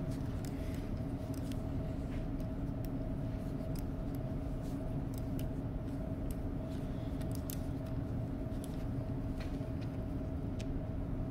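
Steady low machine hum with a faint whine in it, under scattered light metallic clicks as a socket is turned by hand to back out a small screw from a fuel injection pump.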